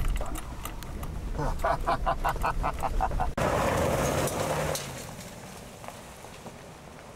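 A white Ford van driving off down a gravel track: engine and tyres crunching on gravel, loudest about three and a half seconds in, then fading as it pulls away. Before that, a quick string of short mid-pitched pulses, about five a second.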